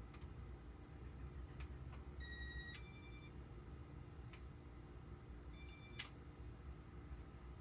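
Sharp clicks of control buttons being pressed on a Casablanca ceiling fan, with two short electronic beeps that step in pitch, over a low steady hum.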